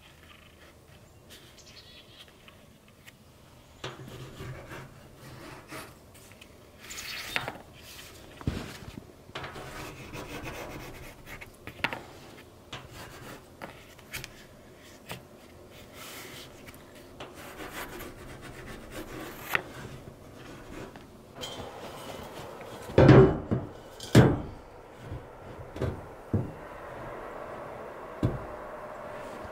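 Pencil scraping and rubbing as an outline is traced against a corrugated steel shipping-container wall, with scattered taps and shuffles. About two-thirds of the way in come a few loud knocks on the steel, the loudest sounds.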